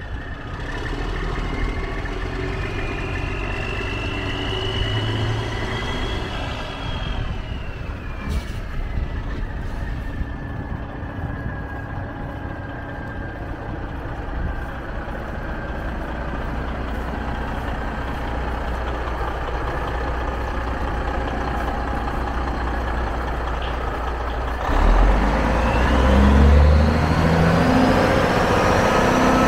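Semi-truck diesel engine running, with a whine that rises and falls in pitch. About 25 seconds in, the engine grows louder and the whine climbs steadily higher.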